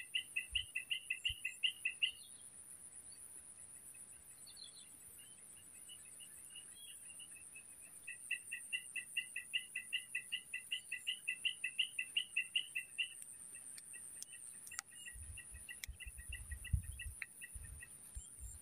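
A bird calling a fast run of repeated two-pitched notes, about four a second, once briefly and again for about five seconds, over a steady high insect buzz.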